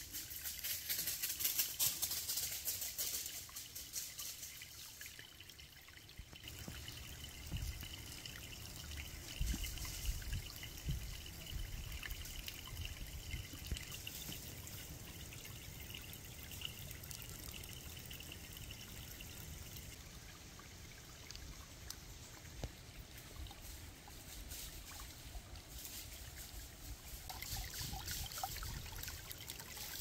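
Small stream trickling over its bed, louder near the start and again near the end. A faint steady high note runs through the middle, over irregular low rumbling.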